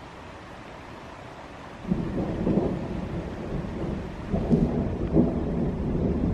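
Thunder from an approaching thunderstorm: rolling low rumble that breaks in suddenly about two seconds in and swells in several louder surges, over the faint steady rush of a mountain stream.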